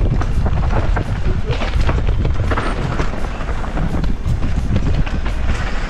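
Mountain bike running down a rough downhill trail: a constant loud rumble with frequent sharp rattles and clacks as the bike goes over bumps.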